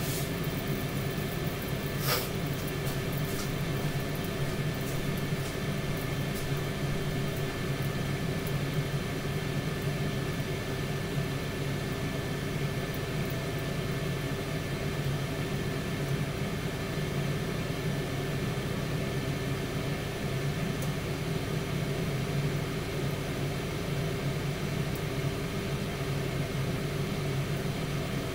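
Tower air fryer oven running with a steady hum from its fan, with one sharp click about two seconds in.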